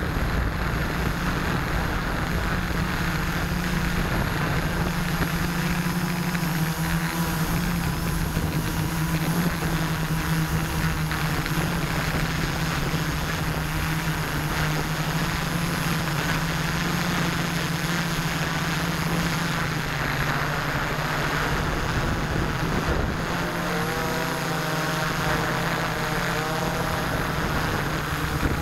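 Hexcopter's six electric motors and propellers droning steadily in flight: a constant low hum over a broad rushing noise. Near the end a wavering higher whine joins in.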